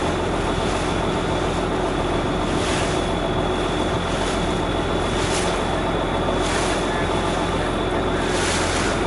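A boat engine running steadily with a low, even hum, with wind and water noise around it.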